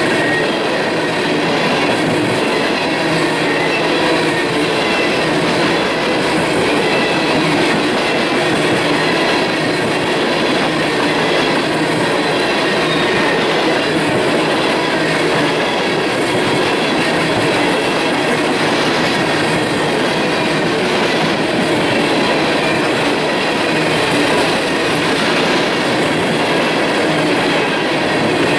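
Empty coal cars of a freight train rolling steadily past at close range: the continuous rumble and clatter of steel wheels on the rails.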